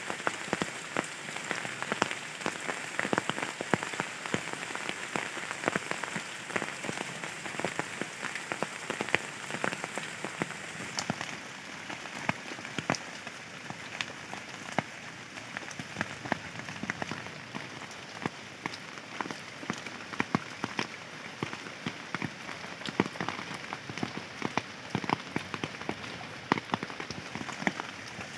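Steady rain, with many separate drops landing close by as sharp ticks over the hiss. The high hiss thins out about eleven seconds in.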